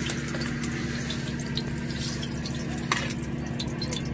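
Irregular dripping with a single louder drop about three seconds in, over a steady low hum.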